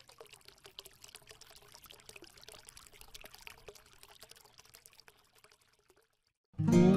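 Faint trickling, splashing water sound effect made of many small clicks, dying away about five and a half seconds in. Strummed acoustic guitar music starts just before the end.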